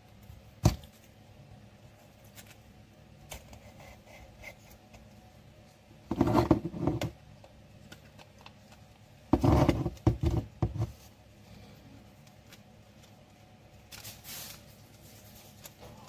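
Handling noise from assembling a small aroma diffuser: a sharp click about a second in, then two spells of clattering and rubbing of the glass fragrance bottle and plastic housing as they are fitted together, and a faint rustle near the end.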